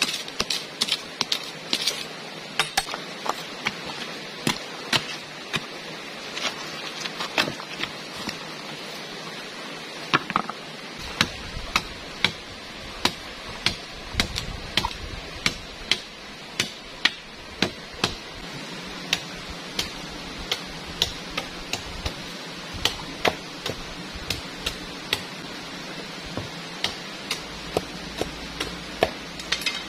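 Irregular sharp knocks, about one or two a second, of a metal hand tool digging into stony ground and striking bamboo, over a steady rush of river water.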